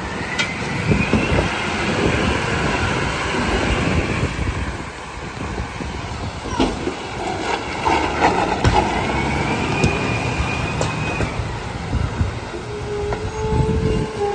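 McNeilus rear-loader garbage truck running, its diesel engine and hydraulic packer working, with a whine that swells and fades twice.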